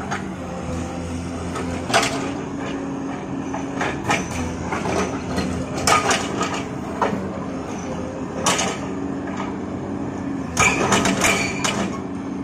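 XCMG XE215C excavator's diesel engine running steadily, with sharp knocks and cracks of rock as its hydraulic breaker works the stone. The knocks come at uneven intervals, with a quick run of strikes near the end.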